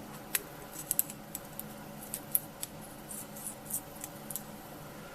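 Irregular light metallic clicks and ticks of Simson S51 gearbox parts on the hollow shaft being moved by hand, as the shaft's axial play is checked after fitting a shim.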